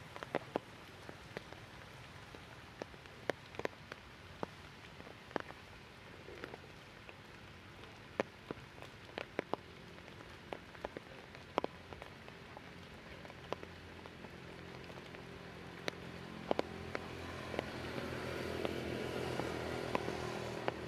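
Irregular drips and ticks of rainwater falling from the wet forest canopy onto leaves after rain, over a soft steady hiss. A low rumble swells near the end.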